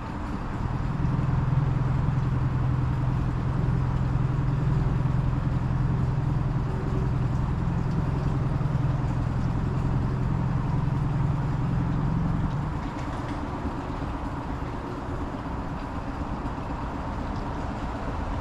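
Outboard motor of a small skiff running steadily with a low hum, freshly serviced with new spark plugs. It grows louder about a second in and drops back about two-thirds of the way through.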